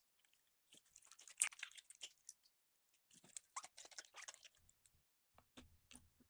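Slime being squished and worked by hand, giving small crackling clicks in two dense runs, then a few scattered clicks near the end.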